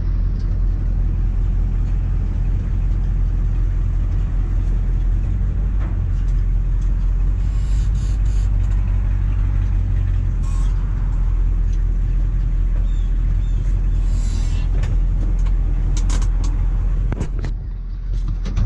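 1985 GMC 3500's 6.2-litre Detroit diesel V8 running steadily at cruising speed on the road, heard from the cab with drivetrain and road noise. A few sharp clicks and a brief drop in engine sound come near the end.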